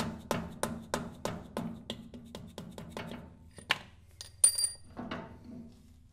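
Hammer tapping a steel punch to drive a Ford Model A front-axle kingpin back up out of the spindle, about three metal-on-metal blows a second. Near the end come a sharper clang and a ringing metallic clink, the loudest sound, then one last knock before the tapping stops.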